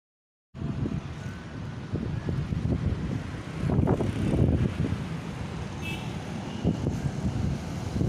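Wind buffeting the microphone as a low, gusting rumble, rising and falling, under a gathering storm.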